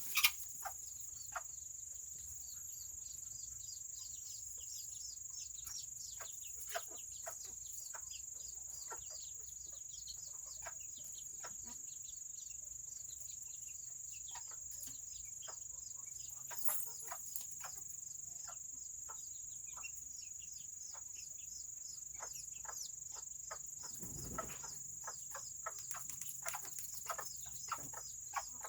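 Serama bantam chickens peeping and clucking: many short, quick calls that slide downward in pitch, scattered throughout, over a steady high-pitched whine. A low, rough sound comes once, about three quarters of the way through.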